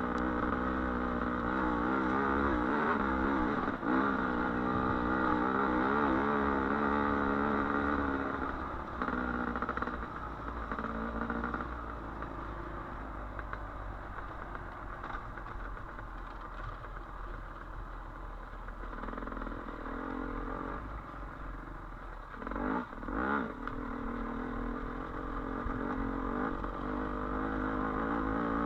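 Dirt bike engine running on a trail ride, its revs wavering up and down. It eases off through the middle, with a short burst of clatter a little past two-thirds of the way through, then pulls harder again near the end.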